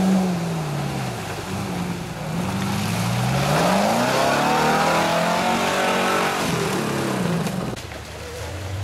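Land Rover-based off-road trials vehicle's engine revving up and down repeatedly as it drives through deep mud, loudest in the middle, with the tyres churning and splashing through the mud.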